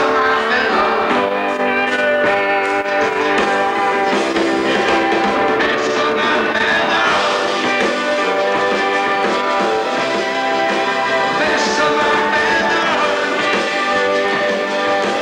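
Live rock band playing, led by electric guitars at a steady loud level, with a thin sound that has little bass.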